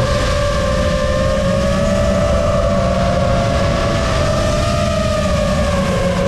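Motors and 5-inch propellers of a Lumenier QAV-S quadcopter whining in flight, the pitch wavering up and down as the throttle changes, over a low rushing noise.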